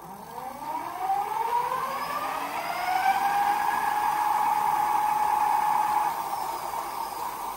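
Electric hub motor of an Ariel Rider X-Class 52V e-bike whining under throttle as it spins the wheel up. The pitch rises over the first few seconds, holds steady, then starts to fall near the end as the throttle eases off. This is a throttle test of the newly wired dual-battery setup.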